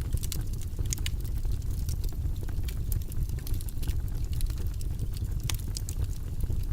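Fireplace fire crackling: irregular sharp pops and snaps over a steady low rumble of flame, with one louder snap about five and a half seconds in.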